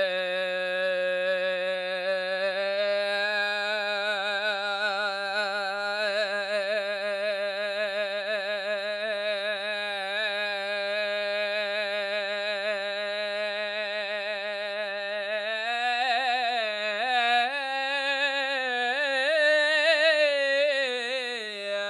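A single voice sings one long held note in chest voice, a wordless vocal improvisation. The note starts steady, then takes on vibrato. Near the end it climbs higher, wavers and swells louder before sliding back down to the starting pitch.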